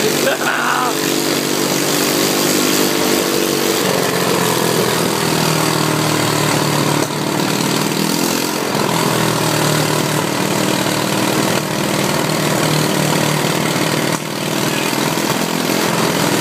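ATV engine running under way, with a steady hiss over it. The engine note drops about four seconds in and shifts again around eight seconds in as the throttle changes.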